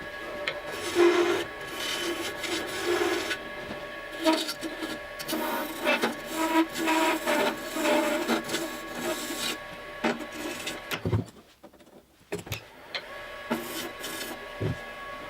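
Wood lathe spinning a hardwood knob blank at high speed while a carbide turning tool cuts it, in repeated scraping passes over the steady whine of the lathe. About two-thirds of the way through the sound drops to near quiet for a second or so, then the lathe runs on.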